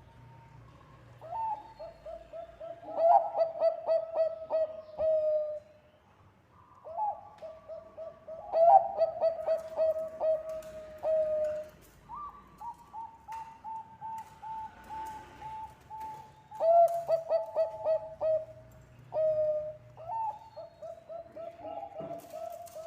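Zebra dove (Bangkok perkutut) singing: about five song phrases a few seconds apart. Each phrase is a run of quick staccato coos ending in a long held, slightly falling coo.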